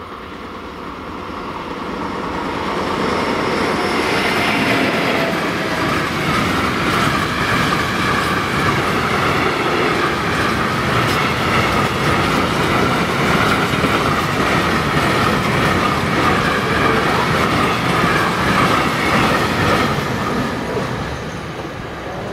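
Freight train of tank wagons passing, its wheels running over the rails. The noise builds over the first few seconds, holds steady, and eases off near the end.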